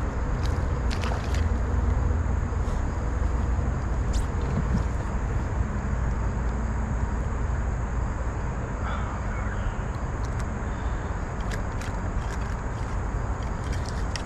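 Steady rushing noise of river current and wind on the microphone, with scattered sharp clicks, while a hooked smallmouth bass is being played from a kayak.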